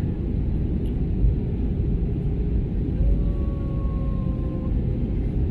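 Steady low rumble of jet engine and airflow noise inside an Airbus A320 passenger cabin, with a faint steady tone about halfway through that sinks slightly in pitch and fades.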